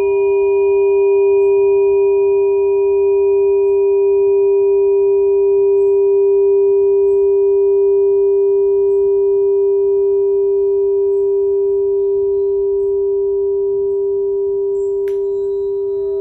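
A steady, sustained ringing tone with several overtones, held without fading. About fifteen seconds in, a short tap brings in a second, higher tone.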